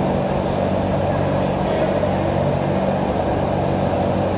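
Steady drone of running machinery with a low hum.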